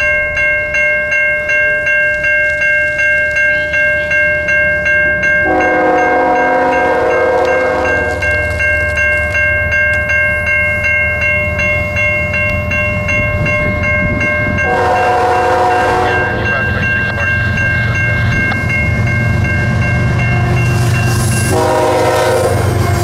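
Level-crossing warning bell dinging about twice a second while an approaching Canadian Pacific diesel freight train sounds its horn three times: a long blast about five seconds in, another about fifteen seconds in, and a third near the end. The low rumble of the locomotives grows steadily louder as the train nears the crossing.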